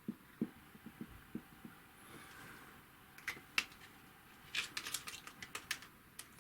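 Drawing on a board: soft, irregular taps in the first half, then sharper clicks, with a quick run of them about four and a half to six seconds in.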